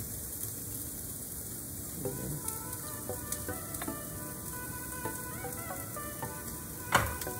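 Soft background music, short notes coming in about two seconds in, over a steady hiss, with one sharp knock near the end.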